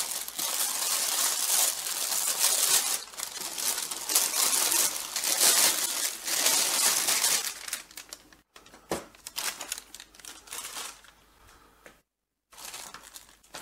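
Thin plastic packaging bag crinkling and rustling loudly as a label printer is worked out of it, for about seven seconds. Then quieter rustling with a few light knocks, and a brief drop to silence near the end.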